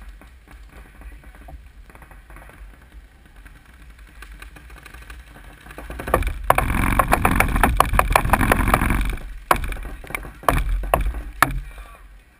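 Paintball marker firing a rapid stream of shots for about three seconds, starting about six seconds in, then a handful of single shots spaced about half a second apart.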